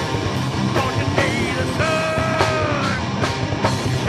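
Heavy rock band playing live: electric guitars, bass and drum kit, with a long held note about halfway through that sags slightly at its end.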